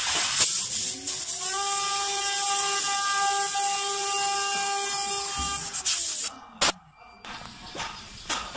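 CNC router's inverter-driven electric spindle spinning up with a rising whine, holding a steady pitch for about four seconds, then winding down, over a steady hiss. A sharp click follows about a second after it stops.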